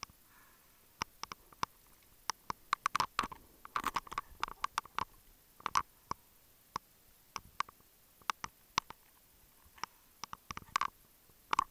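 Scuba diver's exhaled regulator bubbles, heard underwater as irregular clusters of crackling clicks and pops, with short quiet gaps between breaths.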